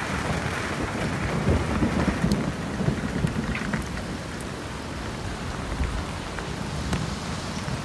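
Heavy rain falling steadily on the boat and the water, with an uneven low rumble underneath and a few faint drop ticks.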